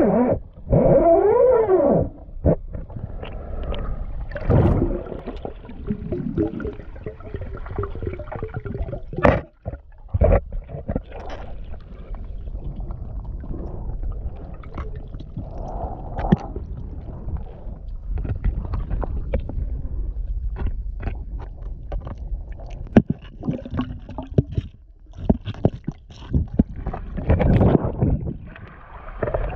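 Muffled underwater gurgling and sloshing picked up by a camera's microphone under the water surface, with many short clicks and knocks from the water and the camera being handled. A few wavering tones rise and fall in the first two seconds.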